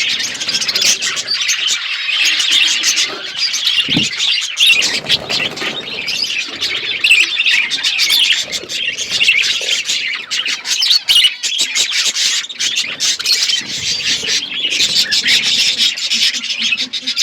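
Budgerigars chirping and chattering continuously in a dense, overlapping flock chorus with occasional squawks. There is a brief dull thump about four seconds in.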